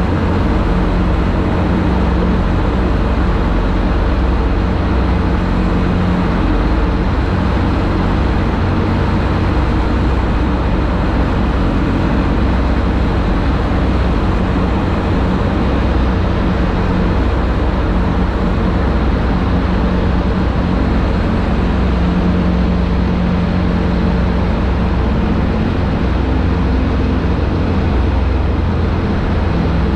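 TVS Apache 200 single-cylinder motorcycle engine running steadily at cruising speed, mixed with heavy wind and road noise, inside a road tunnel.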